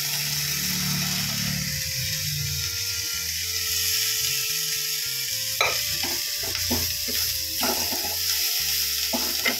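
Boiled cluster beans tipped into a hot pan of frying spice and onion mix, sizzling steadily. In the second half a few knocks and scrapes come from the pot and wooden spatula against the pan as the beans are pushed in and stirred.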